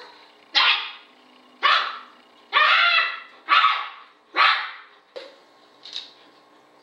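A dog barking, about seven sharp barks roughly a second apart, the last two fainter.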